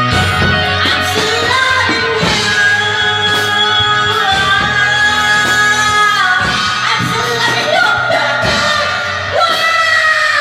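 Music: a song with a voice singing long held, gliding notes over band accompaniment.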